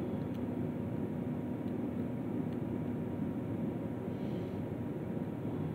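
Steady low background rumble, with a few faint ticks of a lock pick working the pins of a Master Lock 150 padlock.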